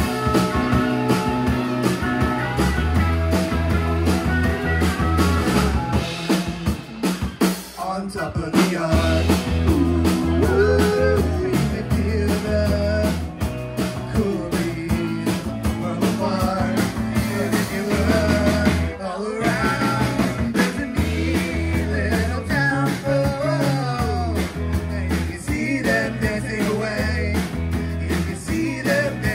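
Live rock band playing: electric guitars, bass and drum kit with a singing voice, and a short stop about two-thirds of the way in.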